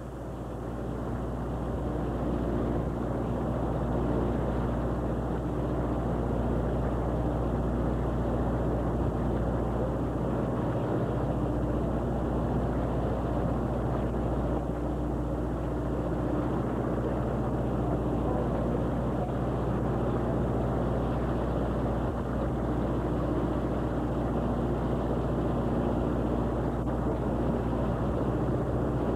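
A fishing boat's engine running steadily: a low, even drone with a faint steady hum above it.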